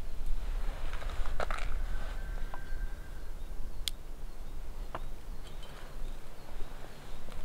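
Quiet outdoor ambience: a steady low rumble with a few faint, sharp clicks and a brief thin whistle-like tone early on.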